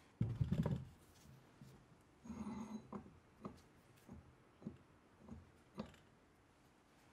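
Rusty 1950s Paramo No. 5 bench vice being worked by hand: a heavy metal clunk, then a scrape with a faint ring, then a run of about six short knocks at roughly half-second spacing.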